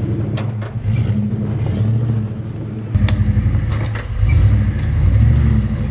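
Nissan Patrol GU 4WD's engine working under load as it crawls up rock steps, a steady low drone. It grows louder and deeper from about three seconds in and swells briefly near the end, with a few sharp clicks in the first second.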